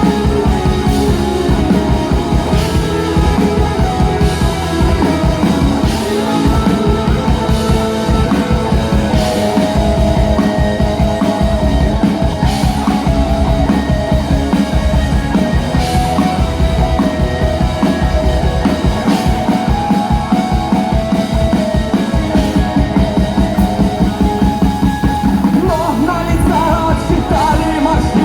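Rock band playing an instrumental passage between verses, with drums keeping a steady fast beat under sustained guitar or melody lines; a bending melodic line comes in near the end.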